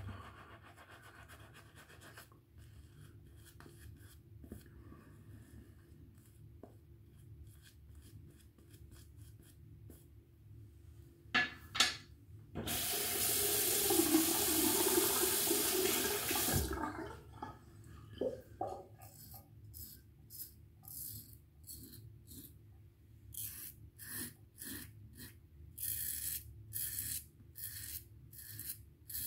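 A tap runs for about four seconds midway, likely as the razor is rinsed. Later comes a run of short scraping strokes, about one a second, as a Merkur Futur safety razor cuts through lathered stubble.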